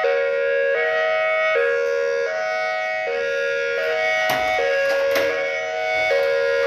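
Outdoor warning siren sounding a stepped multi-tone pattern, jumping abruptly between pitches about every three-quarters of a second rather than gliding. A couple of sharp knocks come about four and five seconds in.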